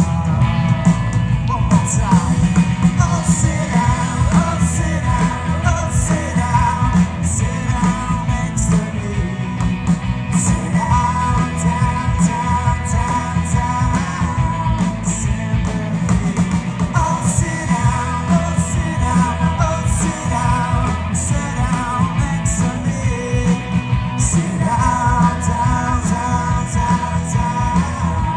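Live rock band playing: electric guitar, bass and drums, with cymbals ticking steadily and a bending melody line over the top, with some singing.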